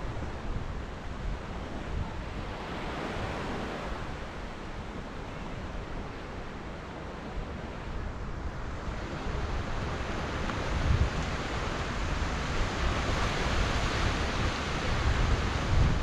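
Surf breaking and washing onto the beach, a steady rushing that swells about three seconds in and again from about nine seconds on. Wind buffets the microphone with low rumbles, stronger near the end.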